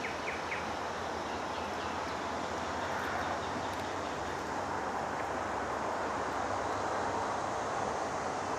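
Steady, even rumble of distant vehicles.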